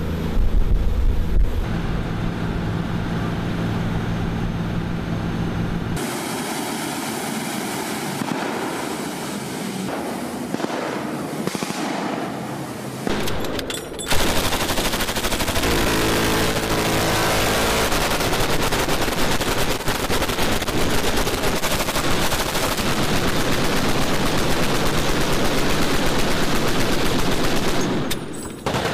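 Sustained machine-gun fire from boat-mounted guns, including M134 minigun fire, with a boat engine running under it. The sound changes abruptly about six and fourteen seconds in, and it drops briefly near the end.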